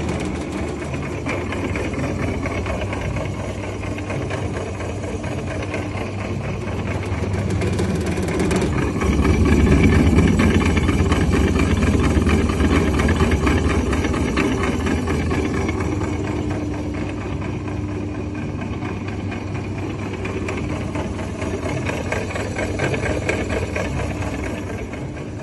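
Butcher Boy meat grinder's electric motor and gearing running steadily, growing louder and heavier for a few seconds around the middle, then settling back.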